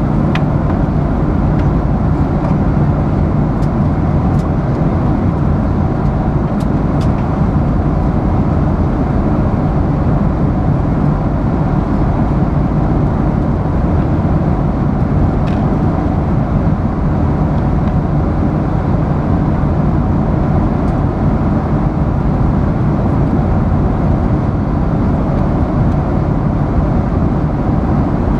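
Steady airliner cabin noise: the even, low rush of the engines and airflow, unchanging throughout, with a few faint ticks in the first half.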